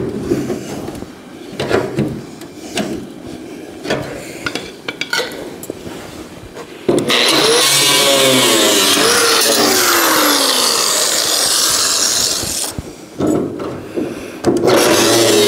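Cut-off wheel cutting into the old steel of a quarter panel. Light knocks and taps of the tool on metal come first. About halfway through, the wheel bites in with a loud, steady grinding screech whose pitch sags under load, stops briefly, and starts again near the end.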